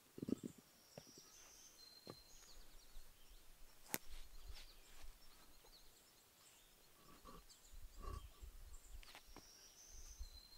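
Quiet woodland sound: a small bird gives a short high call twice, about two seconds in and again near the end. About four seconds in there is one sharp knock as concrete blocks are handled, with soft shuffling around it.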